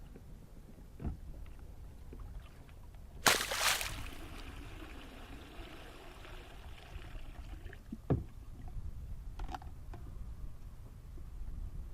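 Gear being handled aboard a kayak. A loud sudden clatter about three seconds in trails off into a few seconds of fading rushing noise, then come two knocks against the hull.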